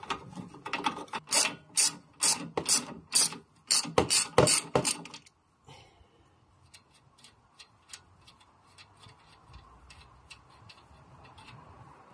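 A 17 mm ratcheting wrench clicking in short back-and-forth strokes, about two clicks a second, as it undoes the nut on a sway bar end link stud held still with an Allen key. After about five seconds the clicking stops and only faint light ticks remain.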